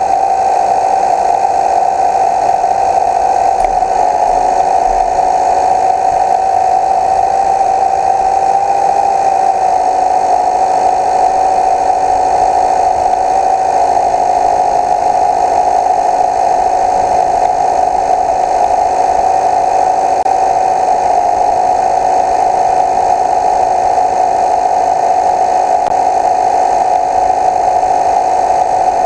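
Steady, loud whine from a model boat's drive gearbox as the windmill-driven boat runs, holding one pitch with a slight waver about nine seconds in.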